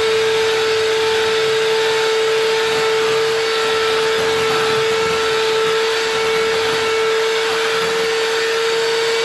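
Electric hand mixer running steadily at one speed, its motor giving a steady high whine while the beaters whip thick cream cheese frosting in a glass bowl.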